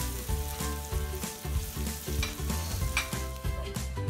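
Amla (Indian gooseberry) pieces sizzling in oil in a non-stick frying pan while a wooden spatula stirs and scrapes them.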